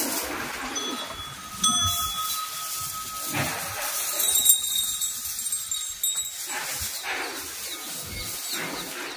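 Small metal bells on a temple elephant's neck chain jingling as the elephant moves, ringing most clearly about one and a half seconds in and again around four to five seconds in.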